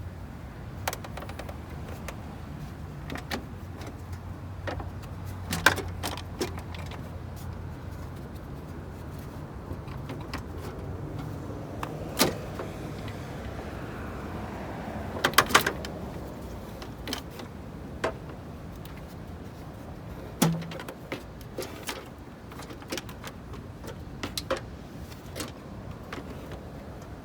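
Scattered clicks, rattles and knocks of a loosened plastic engine-bay cover and trim being handled, with louder clusters about 6, 12 and 15 seconds in and a dull knock about 20 seconds in. Under the first eight seconds there is a low steady hum, which then fades out.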